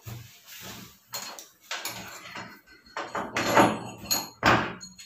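Irregular metallic clunks and scraping rattles as a transit bolt is worked loose and drawn out of the back panel of an LG front-loading washing machine. The two loudest knocks come near the end.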